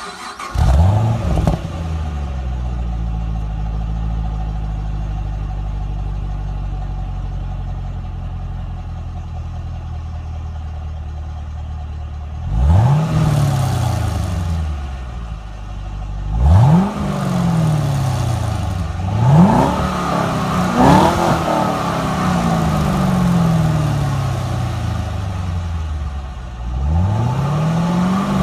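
Chevrolet Camaro engine with its stock exhaust catching and flaring up, then settling into a steady idle. From about halfway in it is revved five times, each rev climbing quickly and falling back to idle.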